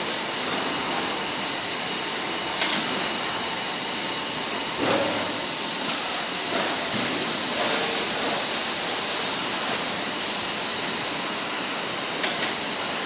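Automatic bagging line for granular animal feed running: a steady mechanical noise of machinery and conveyors, with a few short clanks and clatters as bags are handled.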